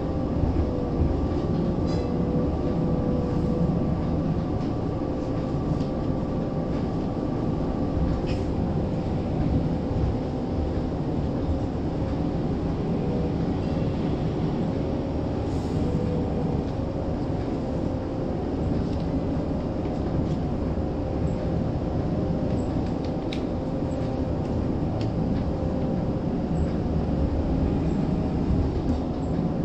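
Steady running noise inside a Toronto streetcar on the move: wheels rumbling on the rails and a steady hum from the electric drive. A higher whine drops out about eight seconds in, and a few light clicks and rattles come through now and then.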